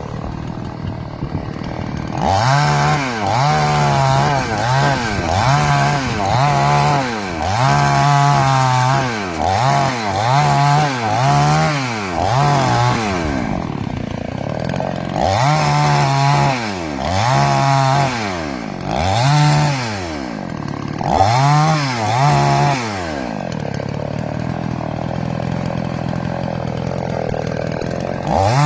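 Gasoline chainsaw engine revving up and down in quick repeated surges, about one a second, in two long runs, then settling to steadier, quieter running near the end.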